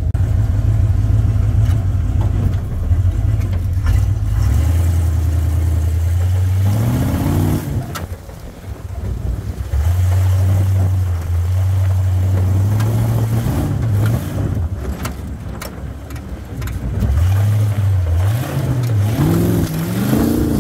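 1976 Ford Bronco's V8 running under load through its new exhaust, heard from the cab while driving. The revs climb as it accelerates about seven seconds in and again near the end, with lulls between where the throttle eases off.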